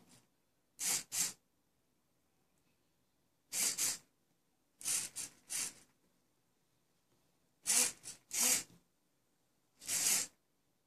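Small hobby RC servo whirring in short pairs of bursts, about five times, as its gear motor swings the horn to follow the PS2 controller's right joystick and back.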